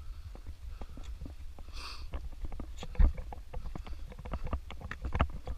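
Footsteps crunching irregularly over loose rocks and stones, with wind rumbling on the microphone; a heavy thump about three seconds in is the loudest sound.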